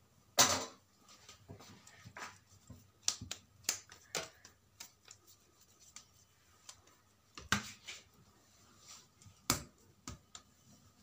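Hands shaping a ball of stiff samosa dough on a tabletop: scattered soft taps and clicks as it is rolled between the palms and pressed onto the table, a few sharper ones around the start and in the second half.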